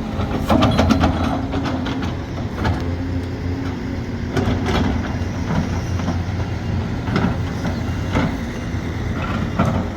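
Sumitomo SH370LHD-6 excavator's diesel engine running steadily, with sharp knocks every second or two as the machine works.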